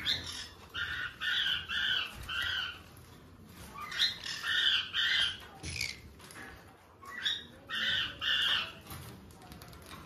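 Pineapple conures, a colour form of the green-cheeked conure, squawking in short calls about a third of a second each. The calls come in three runs of three or four, with gaps of a second or two between the runs.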